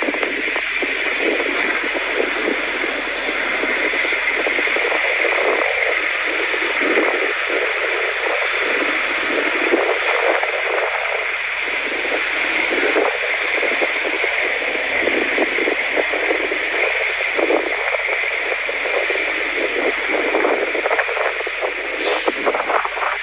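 Steady rushing of blizzard wind, swelling and easing a little.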